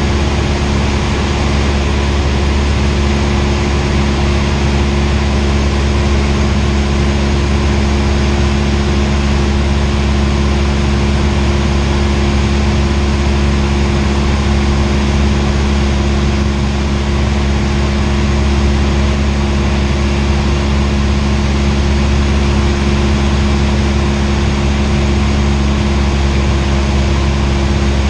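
Cessna 172R's four-cylinder Lycoming piston engine and propeller running steadily in flight, heard inside the cabin: an unbroken hum of several held tones over a constant rush.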